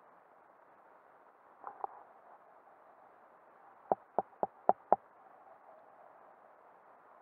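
Underwater ambience: a steady faint hiss, broken by two soft clicks about two seconds in and then a quick run of five sharp clicks around the four-to-five-second mark.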